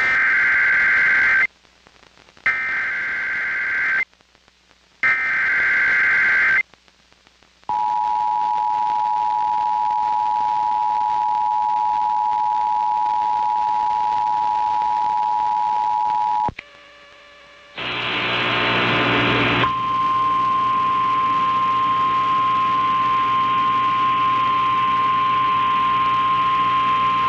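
Emergency Alert System activation on a radio broadcast: three short screeching SAME data bursts, then the two-tone EAS attention signal (about 853 and 960 Hz) held for about nine seconds. After a brief pause and a short burst of noisy audio, a single steady warning tone just above 1 kHz, the NOAA Weather Radio 1050 Hz alert tone, runs with a faint hum under it until near the end.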